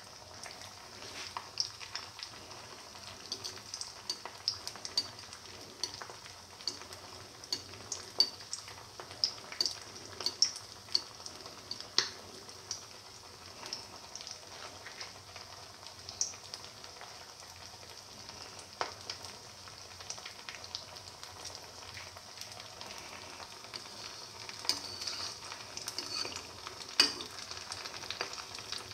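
A chicken, potato and corn-flour patty deep-frying in hot oil in a wok: a steady sizzle broken by frequent sharp pops and crackles.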